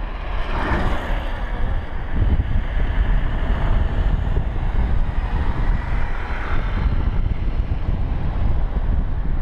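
Car driving along a road: steady rush of tyre, engine and wind noise with a heavy low rumble, swelling louder briefly about half a second in and again around six seconds.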